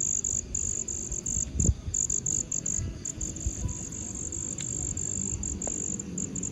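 Insects chirping in a fast, high-pitched pulsing trill over a low rumble, with a single thump about a second and a half in.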